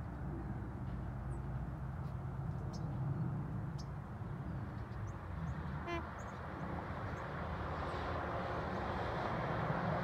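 Outdoor ambience: a steady low rumble with brief, high chirps of birds scattered through, and one short harsh bird call about six seconds in.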